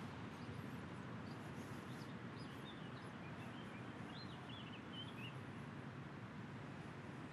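Steady, faint outdoor background noise with small birds chirping faintly, a cluster of short high calls from about two and a half to five and a half seconds in.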